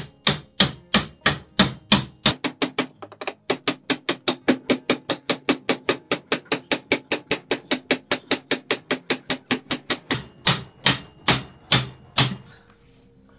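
Rapid series of sharp knocks like hammer blows, about three a second at first, quickening to about five a second, then slowing to a few heavier blows near the end.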